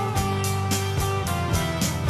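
Background music with guitar and a steady beat of about four strokes a second.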